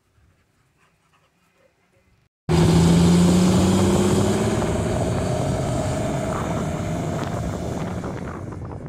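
GMC Silversides coach's diesel engine under load as the bus drives off, its note rising slowly and fading as it pulls away. It comes in suddenly about two and a half seconds in, after a near-quiet start.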